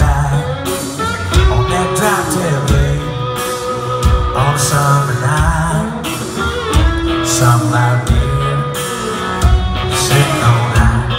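Live band playing a country-rock song, heard from the crowd: electric guitar, bass and drums with a steady beat, and a man singing over them.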